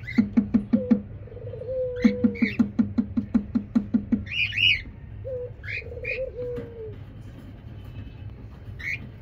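Short, high chirping calls of ring-necked parakeets, repeated several times, over a loud rapid series of low pulses at about five a second in the first half, and two drawn-out low calls that fall in pitch at their end.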